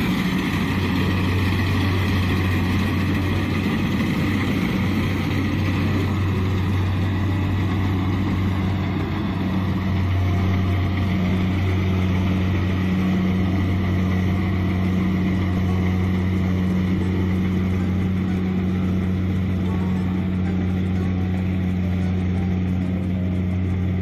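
Kubota DC-70 combine harvester running steadily as it cuts through standing rice, a constant even engine drone.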